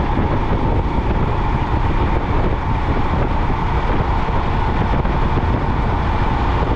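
Royal Enfield motorcycle cruising steadily at highway speed: a constant engine drone mixed with wind rush on the rider's camera microphone.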